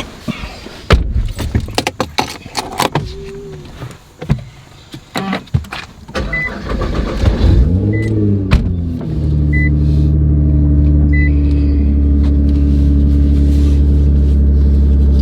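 Clicks and knocks of someone getting into a car, then a dashboard chime beeping four times. The Nissan GT-R's engine then starts, its revs rising and falling back, and settles into a loud steady idle.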